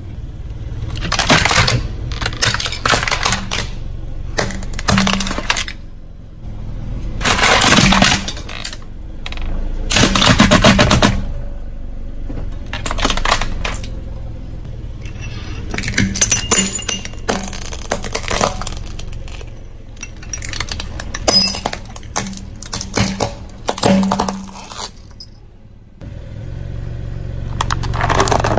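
A car tyre crushing brittle objects, giving repeated crunches, cracks and snaps in several bursts separated by short pauses.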